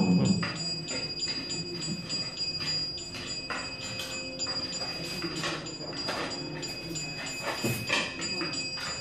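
Hindu puja hand bell rung on and on, with a ringing tone held throughout and irregular clanging strokes, played through a television's speaker.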